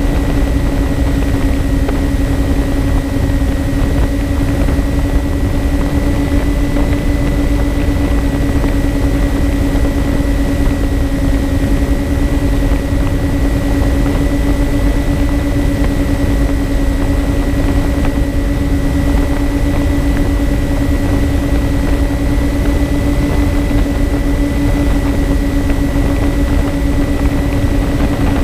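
Twin electric motors and propellers of a MyTwinDream FPV plane running at a steady cruise, heard through the onboard camera: a constant, unchanging propeller hum over a low wind rumble on the microphone.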